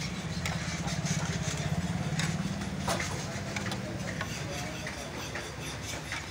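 A small engine idling, a low steady throbbing hum that fades after about three seconds, over the faint hiss of jalebis frying in a wok of hot oil.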